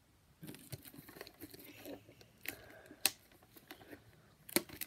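Fingers picking and scratching at the plastic shrink wrap on a Pokémon trading card tin, crinkling and crackling, with sharp clicks of fingernails on the wrap and tin, the loudest about three seconds in and near the end. It starts about half a second in.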